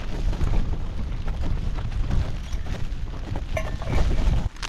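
Gusting wind buffeting the microphone as a low, uneven rumble that swells a little before the end, with a few light clicks near the end.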